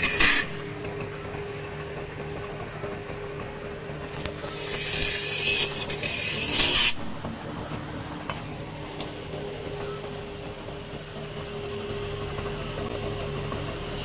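Wood lathe running with a steady hum while a long-handled turning tool cuts into a spinning mahogany blank. There is a short hiss of cutting at the start and a longer, louder one from about four and a half to seven seconds in. Otherwise only the lathe's hum is heard.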